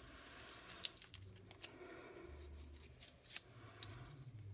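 Faint crinkling of a thin plastic film wrapper being pulled off an AA battery, with a few small sharp clicks.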